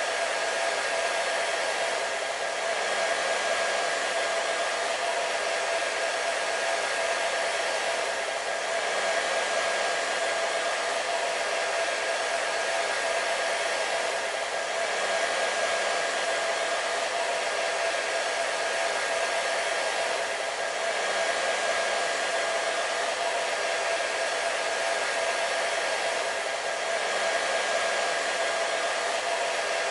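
Hair dryer running steadily: a rushing hiss of blown air with a steady whine from the motor and fan, dipping slightly in level about every six seconds.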